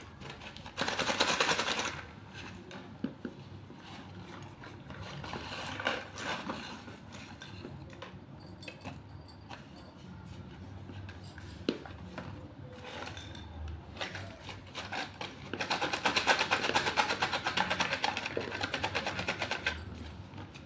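Slate pencils clattering and crunching: a short loud crackle about a second in, scattered clicks and scrapes, then a long run of rapid fine crackling clicks near the end.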